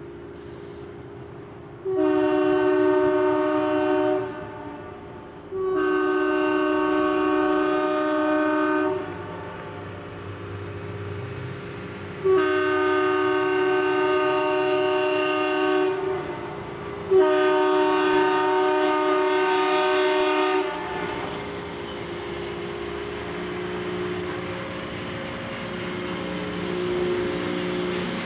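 Diesel freight locomotive's multi-chime air horn sounding four long blasts as the train approaches, followed by the locomotive's engine running as it draws nearer.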